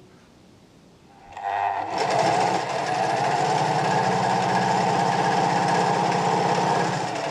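Electric domestic sewing machine stitching fabric: it starts up about a second and a half in, runs fast and steady with a rapid regular needle clatter, and eases off near the end.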